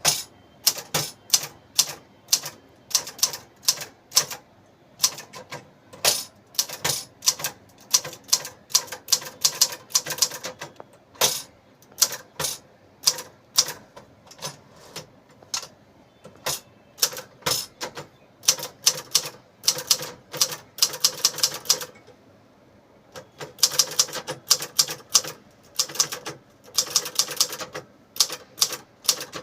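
Elite RS 400 typewriter being typed on: sharp key strikes, several a second in irregular bursts, with a brief pause about three-quarters of the way through.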